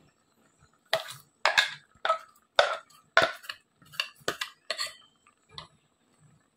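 A steel spoon clinking and scraping against cookware, about nine short, sharp knocks in quick succession, as ground coconut mix is spooned into a clay pot of mashed boiled tubers.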